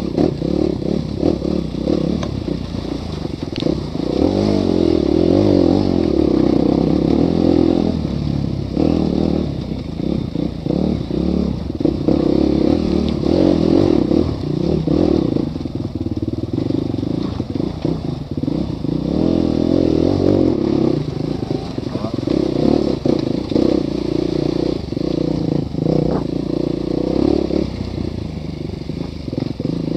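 Enduro motorcycle engine running hard and revving up and down as the bike is ridden over rocks and gravel in a riverbed, with the clatter of stones and the bike's chassis over rough ground.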